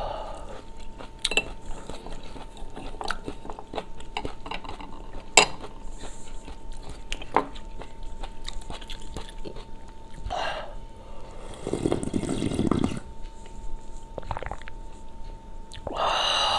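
Eating sounds: chewing, with utensils clicking and tapping against a bowl. About twelve seconds in there is one longer, louder breathy sound, and a faint steady hum runs underneath.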